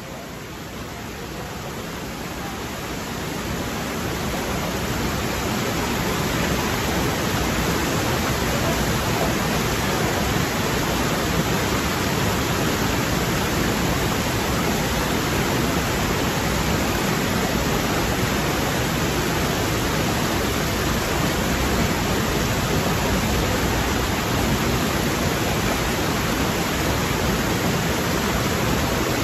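Mountain stream rushing over boulders and small cascades, a steady rush of water that swells over the first few seconds and then holds level.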